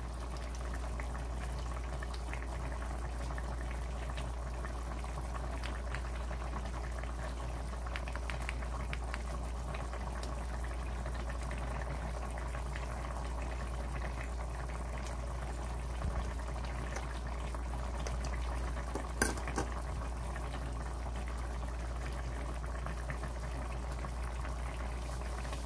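Chicken in thick red chili sauce boiling in a metal pot, bubbling and popping steadily, with a steady low hum underneath and one louder click about two-thirds of the way through.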